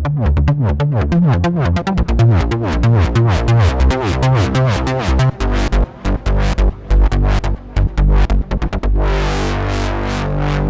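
Roland SH-201 analog-modelling synthesizer playing a trance patch: a fast run of short repeated notes, then choppier stabs. About nine seconds in, a held chord enters with a bright swell in the highs.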